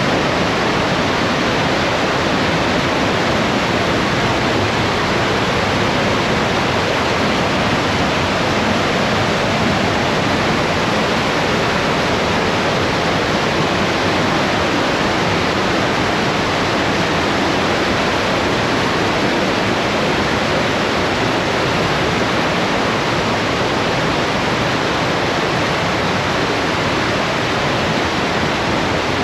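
The Partnach River's white water rushing through a narrow rock gorge, with waterfalls: a loud, steady, unbroken rush of water.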